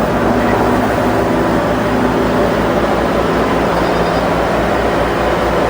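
A vehicle's engine running steadily and close, with a low, even throb under a wide noise.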